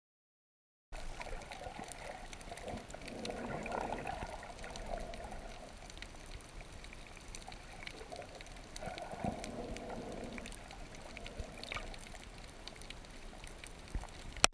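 Water heard from below the surface: a muffled, swelling wash of sloshing water with scattered faint clicks, starting about a second in, and one sharp knock just before the end.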